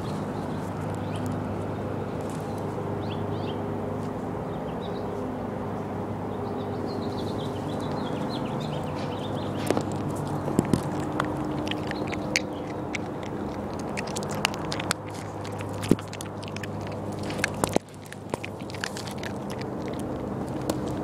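A steady low mechanical hum, with the handling noise of a dog-worn camera on top: scattered clicks and knocks in the second half. A few short high bird chirps come in the first seconds.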